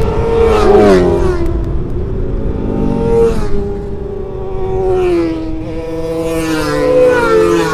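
Kawasaki Ninja ZX-25R motorcycles with racing exhausts passing at high revs. Their small inline-four engines scream in a high pitch that drops as the bikes go by, falling in several steps over the seconds.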